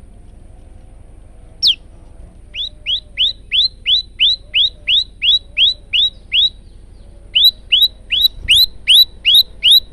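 Male olive-backed tailorbird (prenjak lumut) calling: one sharp falling note, then two long runs of loud, sharp, repeated notes at about three a second with a short pause between them.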